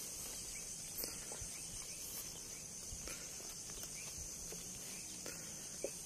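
Steady high-pitched insect chorus, crickets, with a few soft footsteps on dry, cracked ground.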